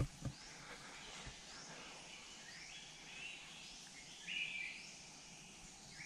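Quiet forest ambience: faint bird calls, a scatter of short high chirps and two brief held calls, over a soft hiss, with a small knock right at the start.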